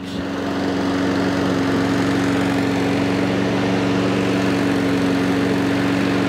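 Honda 160cc overhead-cam single-cylinder mower engine running steadily at a constant speed, on its first run after a full carburettor clean and service.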